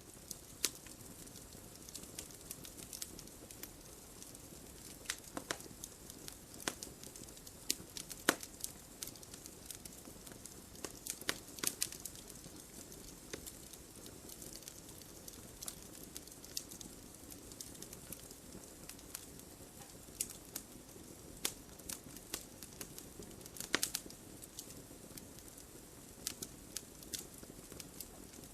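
Wood fire burning with a steady low hiss and irregular sharp crackles and pops, a few louder pops among them.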